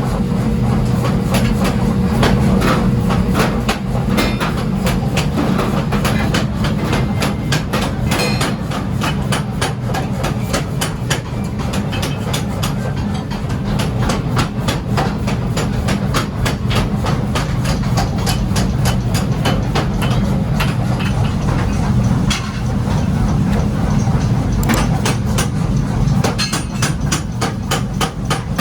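Steel being hammered, with strikes in a quick, even succession, as railroad-track steel is forged into a pickaxe head. A steady low machine hum runs underneath the strikes.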